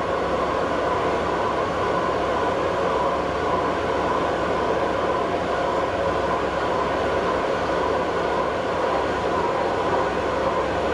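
A large metal-cutting machine tool running steadily in a heavy machine shop, giving a continuous mechanical drone with a steady low hum under it.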